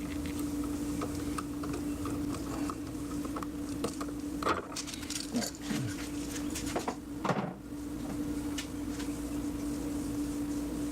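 Scattered small clicks and handling noises of wires and a switch being worked in a wall box, with two louder knocks about four and a half and seven seconds in, over a steady low hum.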